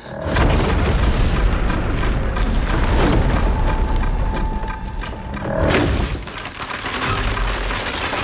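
Film sound effects of an earthquake: a deep rumble that starts suddenly and stays loud, full of crackling and crumbling debris as the ground splits open. It eases briefly about six seconds in, then builds again.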